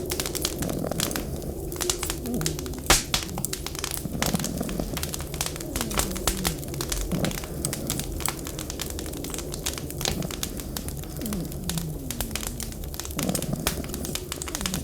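Wood fire crackling and popping in a fireplace over a steady low rumble, with a series of short, low sounds that fall in pitch.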